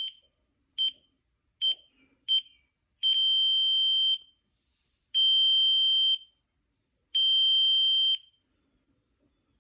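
Arduino piezo buzzer beeping one high tone: four short beeps as the keypad keys are pressed, then three long beeps of about a second each, sounding as the incorrect code is rejected.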